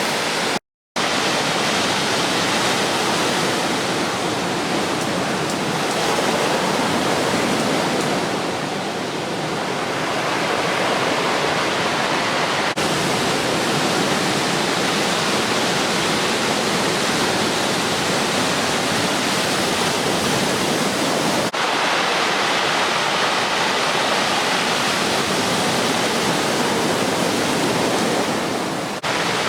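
Ocean surf from a typhoon swell breaking on the beach: a continuous rushing wash of waves, cut off briefly just under a second in where the footage is edited.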